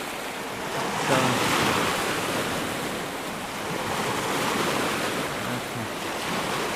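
Sea waves breaking and washing on the shore, swelling and easing, with wind buffeting the microphone.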